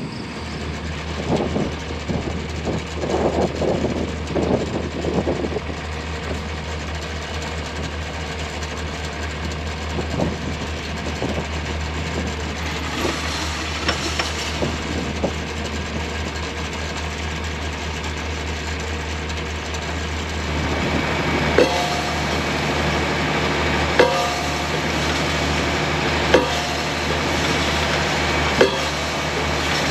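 John Deere 4020 tractor's diesel engine running steadily to power a tractor-mounted hydraulic post driver. The engine speeds up about two-thirds of the way in, and then the driver's hammer strikes the wooden fence post four times, a heavy ringing knock about every two and a half seconds.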